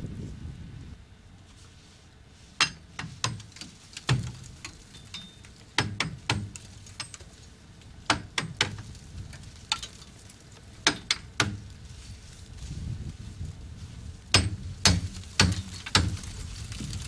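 Ice being knocked off a rime-encrusted steel transmitter tower: irregular sharp knocks and glassy clinks, coming in bunches every couple of seconds, over a low rumble.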